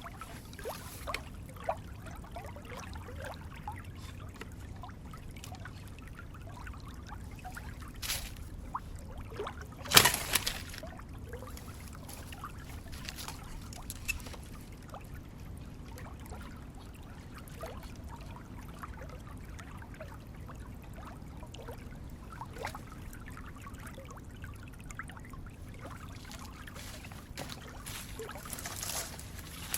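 Water trickling and splashing, with many small drips and splashes scattered throughout and a louder sharp splash or knock about ten seconds in.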